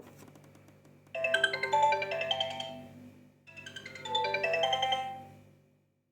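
A preloaded Sony Ericsson W900i phone tone: a short bright melody of mallet-like struck notes, played as two phrases, the second fading out.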